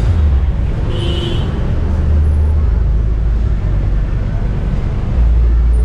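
City street traffic noise: a steady, heavy low rumble of passing vehicles, with a brief high beep about a second in.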